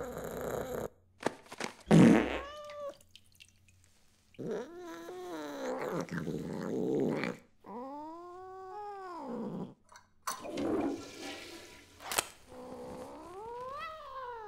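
Film sound effects of a cat straining on a toilet. A loud, low fart-like burst comes about two seconds in, followed by several drawn-out meows that rise and fall in pitch, with two sharp clicks near the end.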